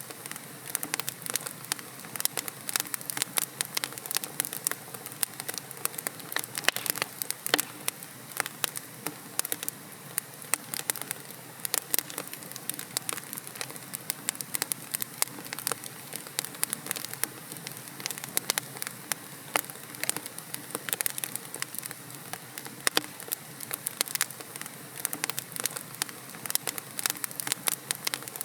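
Wood logs burning in a fireplace: a steady low hiss of flame with dense, irregular sharp crackles and pops throughout.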